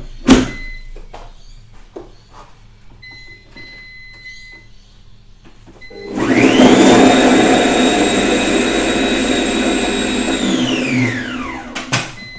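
ThermoCook Pro-M thermo cooker's blender motor blitzing rempah spice paste: it spins up with a rising whine about six seconds in, runs steadily at high speed for about four seconds, then winds down with a falling whine. A click and a few short electronic beeps come before it starts.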